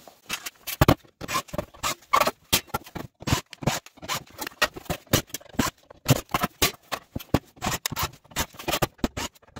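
Clatter of a sheet-metal TV modulator case being handled and taken apart on a workbench: a string of irregular metal clicks, knocks and scrapes, several a second.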